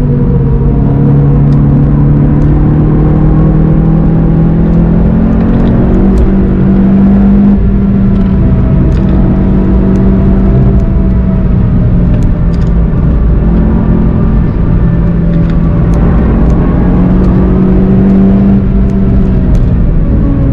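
A car's engine under hard load, heard from inside the cabin during a fast track lap, running with a steady drone over tyre and road noise as the car accelerates; its pitch steps up once about seven and a half seconds in.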